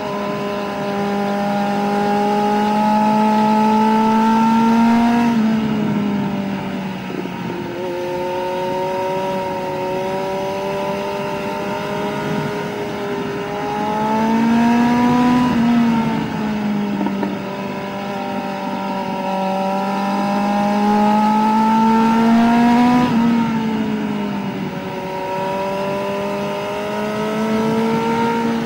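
Kawasaki Z900 inline-four running under way through an SC Project CR-T slip-on exhaust with the under-engine pre-silencer box ("bread box") removed. The engine note holds fairly steady and climbs slowly, with a shift in pitch about five seconds in, again about halfway through, and near the end as the throttle changes.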